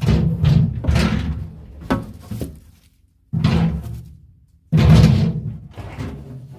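Parts being handled and taken out of a fridge freezer: four separate bursts of knocking and rustling, with a sharp knock about two seconds in.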